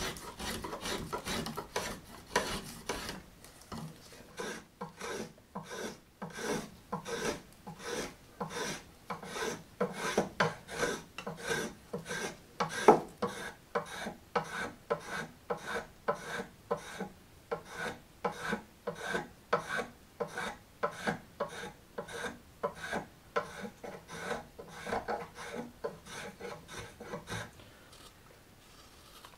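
Carving knife slicing shavings from a green walnut ladle, a steady run of short scraping cuts, about two a second, stopping near the end.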